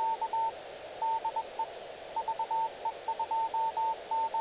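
Morse code (CW) sent as a keyed beep at one steady pitch, dots and dashes in groups broken by short pauses, over a steady radio-like hiss: an amateur radio operator's sign-off.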